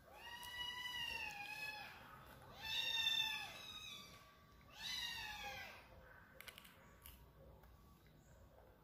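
Baby monkey giving three high, whining coo calls, the first the longest and the last falling in pitch at its end, followed by a few faint clicks.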